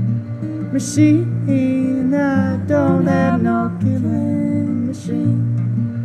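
Acoustic folk song: an acoustic guitar strummed and a fiddle bowed together, with a man singing over them.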